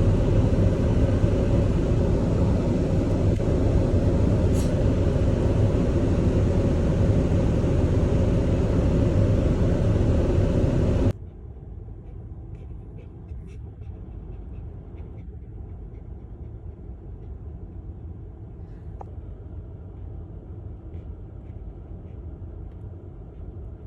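Loud steady rumbling noise, then an abrupt cut about eleven seconds in to a much quieter low rumble with a few faint clicks.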